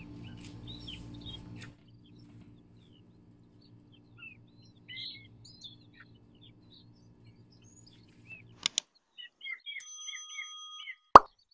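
Birds chirping lightly over a low steady hum that drops in level about two seconds in and stops near the end. Just before the end, a single loud, sharp ding.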